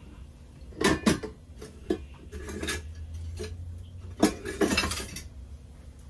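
Metal spoon knocking and scraping against a cooking pot and dishes while food is served, several sharp clinks with scraping in between.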